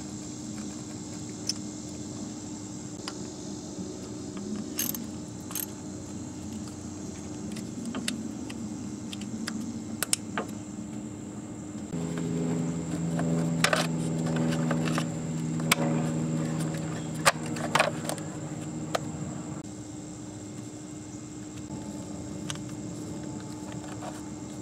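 Scattered metallic clinks and ticks of a small socket and ratchet working a coil-pack bolt on the engine. About halfway in, a low steady drone of several pitches joins for about seven seconds, over a faint steady hum.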